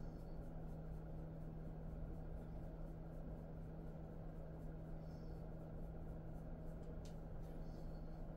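Quiet room with a steady low hum and a faint tick about seven seconds in.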